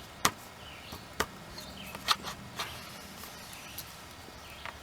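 Sharp knocks and clicks as a hydrofoil fin is slid onto an outboard motor's lower unit and set in place. There is a loud knock just after the start, then three or four softer ones spread over the next few seconds.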